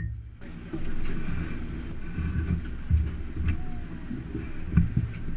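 Low, uneven rumble of wind buffeting the camera microphone on an open boat, with a few faint knocks.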